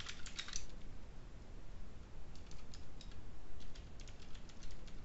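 Computer keyboard typing: runs of key clicks at the start and again through the second half, with a pause of nearly two seconds between them.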